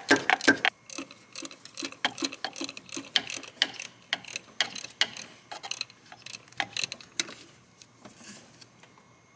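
Ratchet wrench clicking rapidly, about four clicks a second, as alternator mounting bolts are run in. The clicks are loudest in the first second, go on fainter after that, and thin out near the end.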